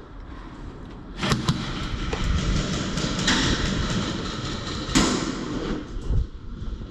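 Airsoft gunfire: a quick string of sharp cracks that starts about a second in, then one loud crack about five seconds in, over a rushing noise of movement.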